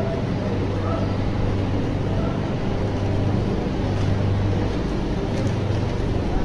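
Steady low hum of a double-decker electric train standing at a station platform, with faint passenger chatter.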